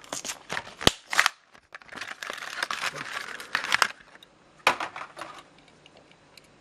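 Plastic blister pack of a Hot Wheels die-cast car crackling and snapping as it is pulled apart by hand, with sharp clicks in the first second or so and a few more near the end.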